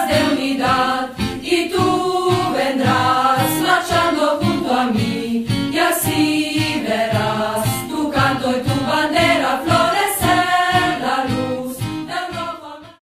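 Outro music: a Spanish-language song sung by a group of voices over a steady beat, fading out at the very end.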